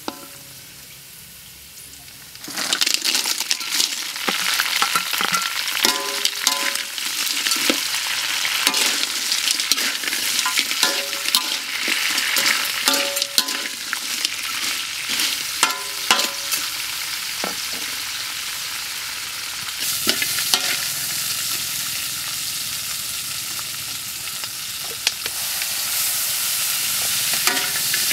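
Small crabs stir-frying in hot oil and garlic in a metal wok: a loud, steady sizzle that jumps up about two and a half seconds in as the crabs hit the oil. A metal spatula scrapes and clinks against the wok all through it.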